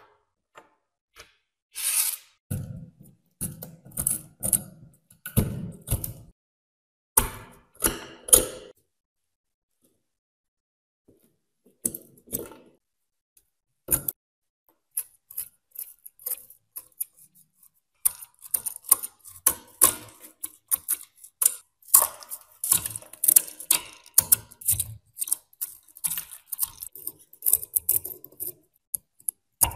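A metal pick or blade scraping and chipping crusted rust and dirt off a corroded steel pistol frame: many rapid, sharp scrapes and ticks from about halfway through to the end. Before that come several knocks and clatters as rusted metal parts are handled on the table.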